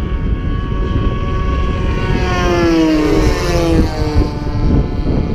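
Radio-control model warbird's four-stroke glow engine flying past, its engine tone dropping in pitch about halfway through as the plane goes by, over a steady low rumble.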